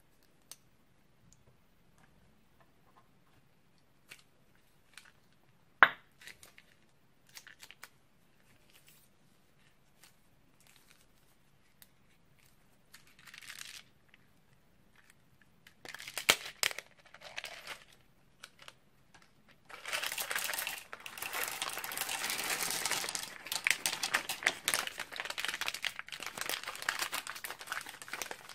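A clear plastic piping bag crinkling as it is handled, with scattered small clicks and one sharp loud click about six seconds in. From about twenty seconds in comes a dense, continuous crackling and rattling as the bag is squeezed and a load of small plastic and wooden beads spills out of it into a glass dish.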